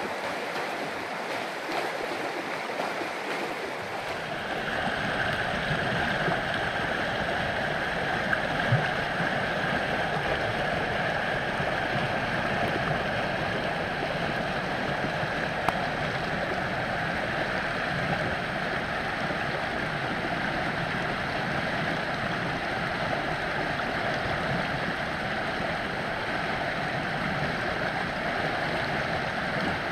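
Storm-swollen creek running high and fast over rocks, a steady rush of turbulent water that grows louder and fuller about four seconds in.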